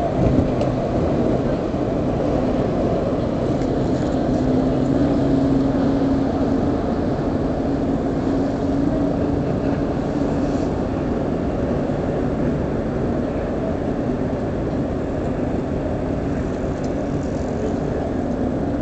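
Norwegian Pearl cruise ship under way: a low, steady rumble with a faint hum that fades over the second half as the ship moves away.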